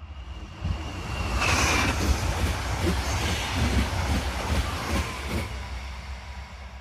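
Train passing close by: a rumble of wheels on rail that builds, peaks about a second and a half in and then fades, with a thin high wheel squeal over it.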